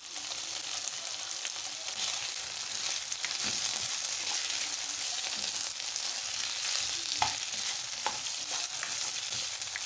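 Beef chunks and chopped garlic sizzling in oil in a non-stick frying pan as a silicone spatula stirs them, a steady high hiss with a few short taps and scrapes of the spatula on the pan, the sharpest a little after seven seconds in.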